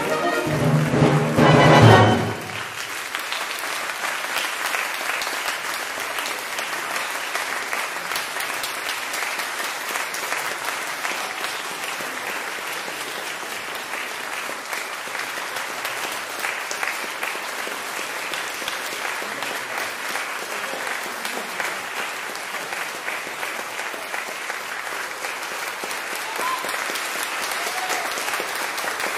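A small orchestra plays its closing chords, swelling and then cutting off about two seconds in, at the end of the opera. An audience then applauds steadily.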